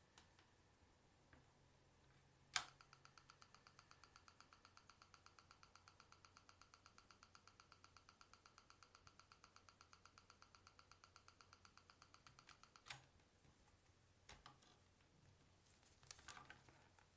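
Onda V972 tablet giving off a faint rapid electronic buzzing, an even string of about eight pulses a second lasting about ten seconds, opening and closing with a sharp click, followed by a few scattered clicks. This is the fault noise that comes up while charging, after which the tablet is totally blocked.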